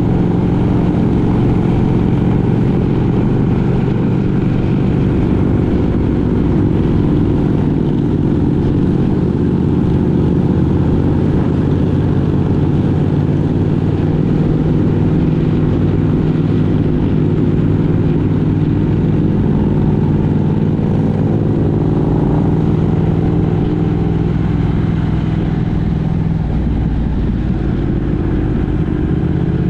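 A road vehicle's engine running steadily while driving, its hum shifting slightly in pitch in the last few seconds.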